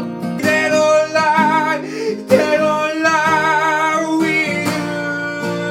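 A man singing a slow, held melody with vibrato over strummed acoustic guitar chords.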